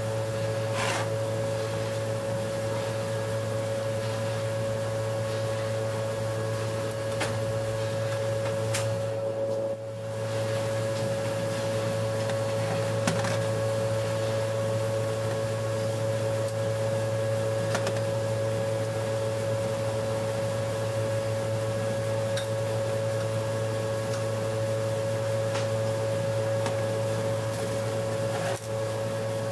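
Steady machine hum with a constant mid-pitched tone, with a few light clicks of metal transmission valve-body parts being handled on a steel bench.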